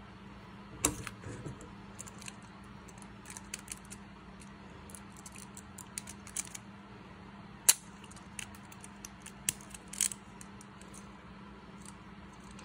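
Packaging and small plastic toy parts being handled: scattered light clicks and rustling, with sharper clicks about a second in and again near the end, over a low steady hum.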